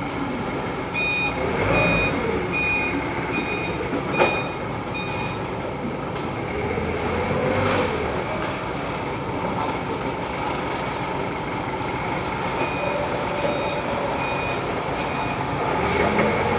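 A forklift running as it manoeuvres, its reversing alarm beeping steadily at about one and a half beeps a second: from about a second in for some four seconds, and again from about thirteen seconds in for some three seconds. A single sharp knock comes about four seconds in.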